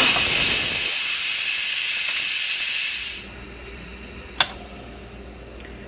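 Instant Pot steam release valve venting pressurised steam in a quick release: a loud, even hiss lasting about three seconds that cuts off sharply once the pressure is gone. About a second later a single click as the float valve pin drops, the sign that the pot has depressurised and is safe to open.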